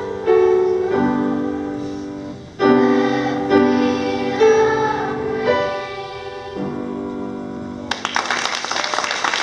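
Piano chords with a group of children singing along. The song ends and applause breaks out near the end.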